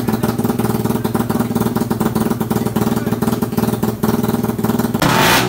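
Motorcycle engine fitted with a full-CNC dual throttle body, idling steadily with an even, fast pulsing beat. Music cuts in suddenly near the end.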